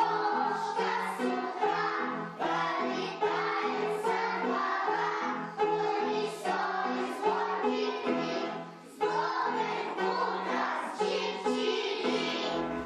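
Music: a choir singing a song with instrumental accompaniment.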